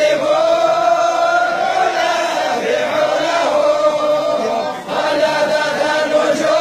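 A group of men chanting together in unison, in long drawn-out held notes, with a brief pause for breath about five seconds in.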